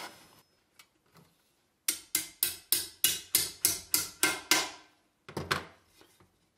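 Small hammer striking metal: about ten quick ringing taps, roughly three a second, then a couple more near the end, riveting a brass-plated steel plate onto a steel helmet visor.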